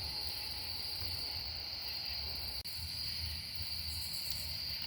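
Steady, unbroken chorus of crickets trilling on a high, even pitch, with a faint low rumble underneath.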